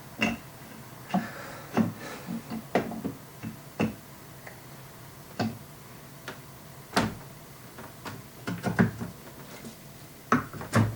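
Hard statue parts being handled and fitted together: irregular sharp knocks and clicks, a dozen or more, some louder than others, as a heavy piece is worked onto its peg.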